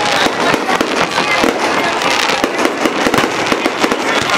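Aerial fireworks shells bursting in rapid succession: many sharp bangs and crackles overlapping, several a second, with no let-up.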